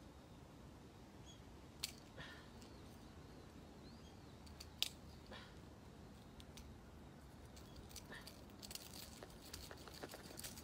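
Faint clicks and scraping of hands handling a large landed fish on concrete, with a few sharp ticks, the loudest about 5 seconds in.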